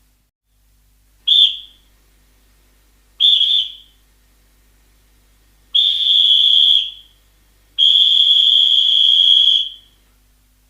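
Referee's whistle blown four times: two short blasts, then a longer one and a final long blast of about two seconds, each a single high, steady tone.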